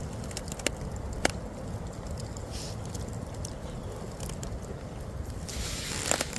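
Campfire crackling, with two sharp pops about a second in and a short burst of crackling and hiss near the end.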